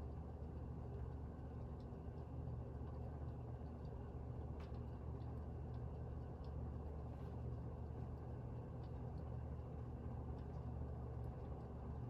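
SMC D4W36 36-inch ceiling fan running steadily, its 12-pole motor on new bearings: a low motor hum with the rush of air from the blades, and a few faint ticks.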